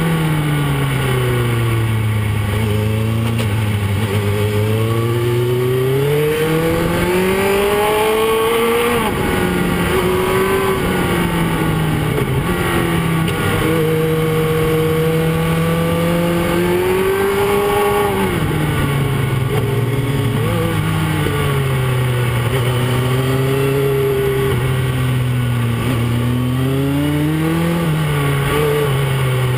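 Motorcycle engine heard from on board the bike. Its pitch climbs as it accelerates, drops back sharply several times, and holds steady in between, under a constant rush of wind noise.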